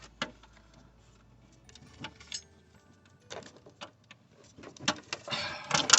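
Scattered light clicks and knocks of metal tools and brake parts being handled at a car's wheel hub, with a louder burst of clatter near the end.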